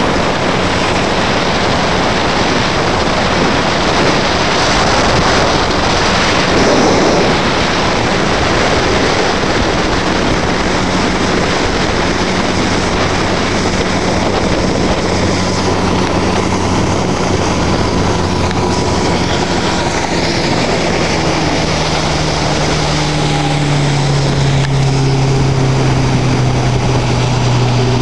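1979 Century motorboat running at speed: a steady engine drone under a heavy rush of wind and water. Over the last few seconds the engine note slides lower and comes through more strongly.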